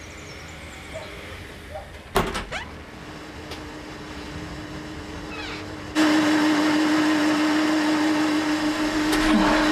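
Kitchen blender running, blending a smoothie: a steady motor whine that starts loud and sudden about six seconds in. A few knocks sound about two seconds in.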